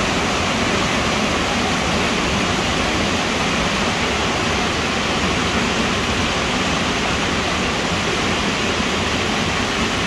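Steady rush of falling water from a waterfall, an even, unbroken roar.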